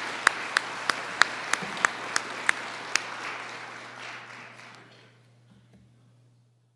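Audience applauding, with one nearby clapper standing out at about three claps a second. The clapping dies away about four to five seconds in, leaving a faint steady hum.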